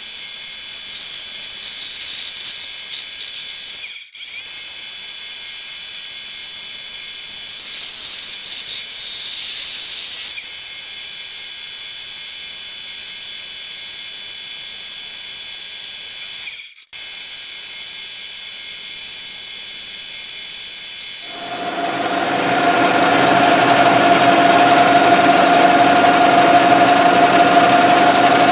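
Metal lathe turning a steel shaft, the tool cutting with a steady high-pitched ringing as chips stream off. About 21 seconds in the cut ends and only the lathe's drive is heard running, a steadier, lower hum.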